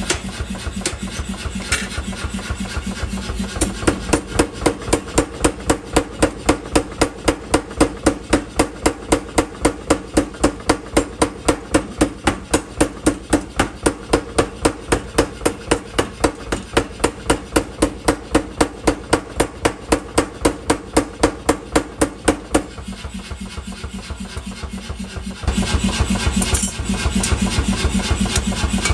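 Mechanical power hammer striking hot steel in a fast, even rhythm of about four blows a second over a running motor. The blows stop about three-quarters of the way through, and only the motor keeps running, louder again near the end.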